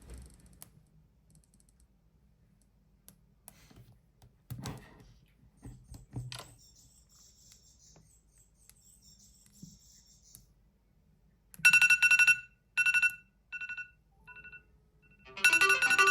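Faint taps of a phone being handled, then a smartphone tone sounding four short times, each quieter than the last, and a melodic smartphone ringtone starting loudly near the end.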